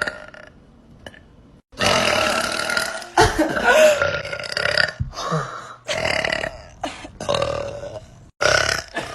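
A young woman burping: a string of long burps one after another, beginning about two seconds in, with short breaks between them.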